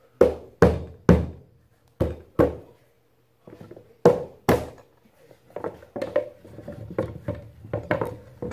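Wooden chair frame being knocked down by hand onto glued seat pegs. There are seven hard thumps in groups, three, then two, then two, over the first five seconds, followed by lighter, quicker knocks and handling of the wood.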